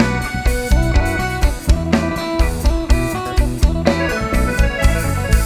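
Live band playing an instrumental passage: electric guitar melody over a drum kit keeping a steady beat.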